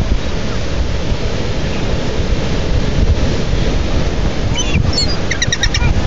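Steady wash of breaking surf with wind buffeting the microphone. Near the end a gull gives a quick run of short, high calls.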